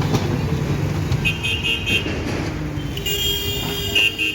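Heavy diesel machinery running steadily, with a high horn-like tone sounding briefly about a second in and again, longer, from about three seconds in.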